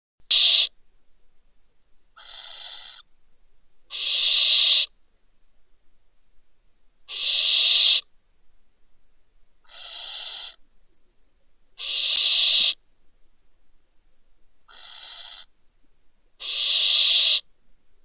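Barn owl hissing screeches, harsh rasping calls about a second long, repeated every two to three seconds. Loud calls alternate with fainter ones, eight calls in all.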